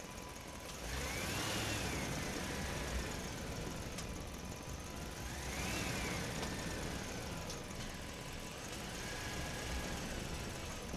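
A toy vehicle's motor whining up and down in pitch twice, then a steadier whine near the end, over a steady running hum.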